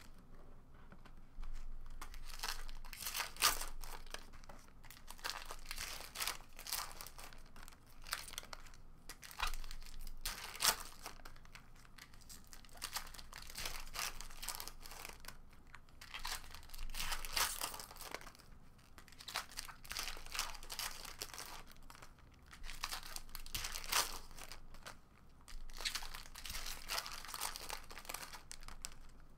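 Foil wrappers of Topps Chrome trading card packs being torn open and crinkled by hand, in irregular crackling bursts, with the cards slid out and squared into stacks.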